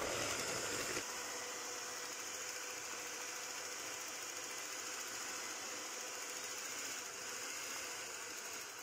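Electric hand mixer running steadily, its spinning beaters whisking thick chocolate brownie batter in a bowl.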